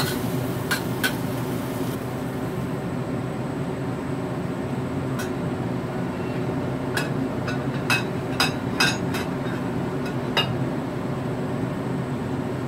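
Gourd strips cooking in a wok: a couple of spatula clicks against the pan, then a steel lid goes on about three seconds in and the frying hiss dies down. What remains is a steady low hum of the covered wok on the gas stove, with scattered sharp clicks and clinks.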